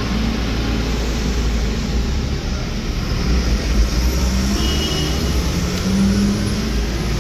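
Steady road and engine noise heard from inside a slowly moving car's cabin in city traffic, a continuous low rumble with a faint engine hum, close behind a heavy tipper truck.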